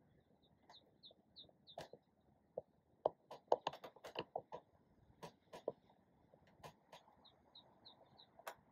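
A bird calling a quick run of five or six short high chirps, once early and again near the end. Between them comes a cluster of sharp clicks and taps, loudest around the middle.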